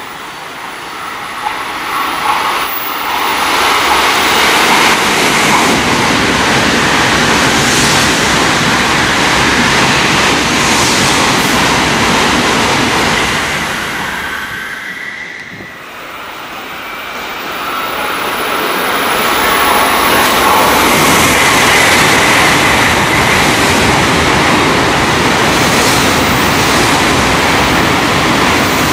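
Two Tokaido Shinkansen bullet trains passing non-stop through a station on a sharp curve, held to about 185 km/h, each a loud rush of air and wheel noise. The first builds up over the first few seconds and dies away about halfway through. The second builds again and is still going by close at hand at the end.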